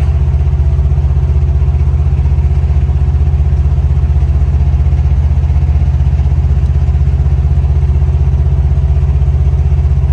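A vehicle engine idling steadily: a loud, low rumble with a fast, even pulse.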